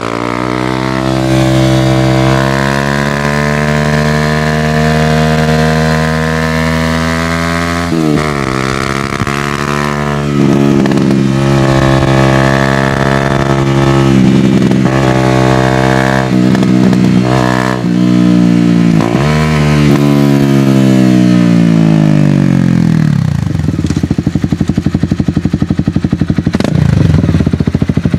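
Honda CBR250R Repsol-edition sportbike's single-cylinder engine through an M4 slip-on exhaust, pulling through several upshifts: the note climbs and drops back at each shift. Past the middle it winds down as the bike slows, then runs at low revs with an even pulsing beat near the end.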